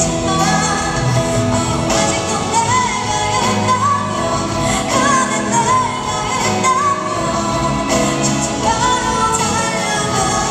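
A woman singing a slow pop ballad live into a microphone, with live band accompaniment, amplified through an arena's sound system. She holds long notes with a wavering pitch.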